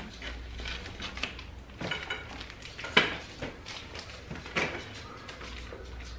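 Plastic wrapping on a clothes-rack pole rustling and being cut with scissors, with scattered clicks and a few sharp knocks of parts being handled, the loudest about three seconds in. A low steady hum runs underneath.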